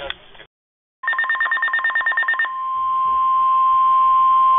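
NOAA weather radio sounding an alert before a flood warning. About a second in comes a rapid, evenly pulsed beeping, and from about two and a half seconds a loud, steady single-pitch warning alarm tone.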